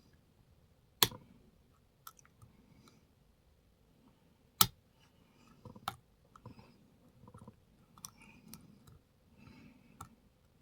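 Lock pick and tension wrench working the pins of a pin-tumbler challenge lock: soft scraping and small metallic clicks, with two sharp, loud clicks, one about a second in and one about four and a half seconds in.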